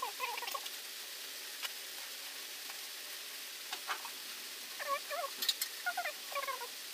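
Short animal calls that bend up and down in pitch, a few at the start and a cluster from about five seconds in, over a steady hiss, with a few faint clicks between them.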